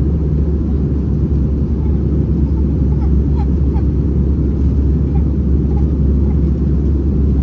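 Steady low rumble of Airbus A321-231 cabin noise: the IAE V2500 engines and the airflow, heard from inside the passenger cabin.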